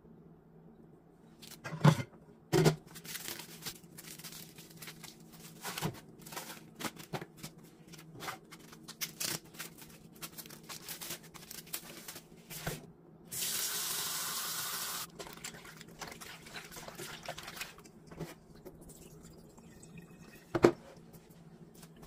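Plastic cling film and the foam tray of raw chicken gizzards crackling as the pack is opened and tipped into an aluminium pot in a stainless steel sink, with a few sharp knocks on the steel. Near the middle a faucet runs for a little under two seconds.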